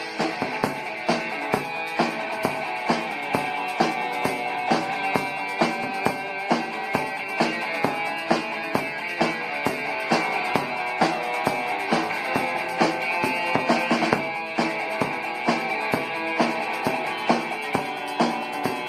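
Rock band playing an instrumental passage: a drum kit keeps a steady beat under guitar.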